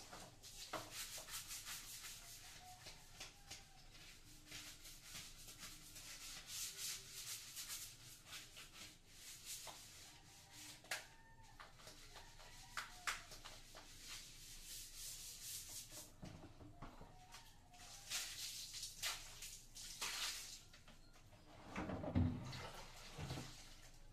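Hand-scrubbing of a tiled bathroom floor and wall: runs of quick, rasping strokes with short pauses. A few low knocks near the end as a plastic basin is handled.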